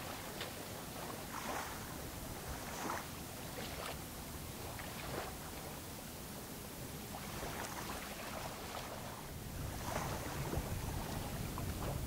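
Small waves lapping at the shoreline in short splashes every second or two, over a low steady rumble of wind on the microphone.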